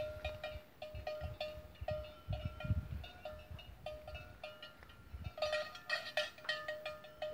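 A metal bell on a cow's neck clanking irregularly as she shifts, about two or three clinks a second.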